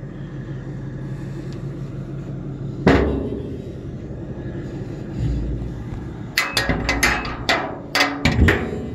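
Steel smoker door and rack hardware being handled: a sharp metal clank about three seconds in, a dull thump a couple of seconds later, then a quick run of metal knocks and clicks near the end, over a steady low hum.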